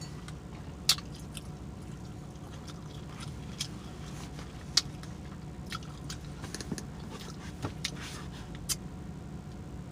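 Close-up chewing and lip smacking of someone eating a crepe, with scattered small mouth clicks and two sharp, loud smacks about a second in and just under five seconds in, over a steady low hum.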